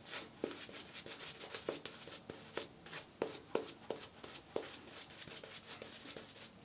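Badger-hair shaving brush working thick lather over two days' stubble: short, irregular brushing strokes, roughly two a second.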